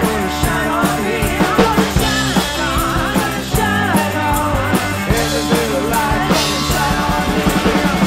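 Live rock band playing a song: drum kit, electric bass and electric guitar, with a woman singing lead.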